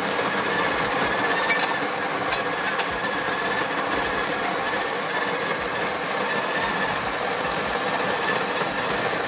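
Breville espresso machine's pump running with a loud, steady buzz while it pushes water through the locked-in portafilter to pull a shot.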